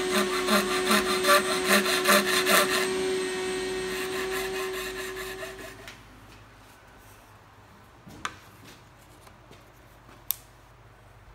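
Flat metal file stroked back and forth along the edge of a hardboard template clamped in a bench vise, about two and a half strokes a second, dying away after about four seconds. The rest is quiet apart from two light clicks.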